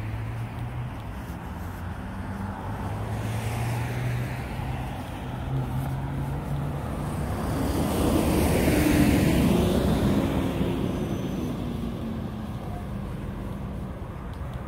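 Road traffic on a city street: engines hum steadily, and one vehicle passes close by, swelling to its loudest a little past the middle before fading away.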